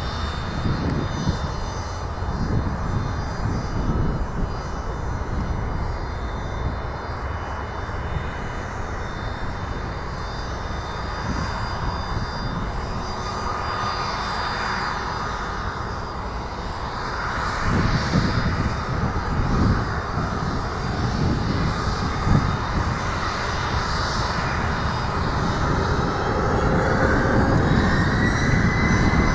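Twin Williams FJ44 turbofans of a Cessna Citation C525 business jet running at taxi power: a steady high whine over a low rumble. Near the end the whine rises in pitch and grows louder as the engines spool up for takeoff.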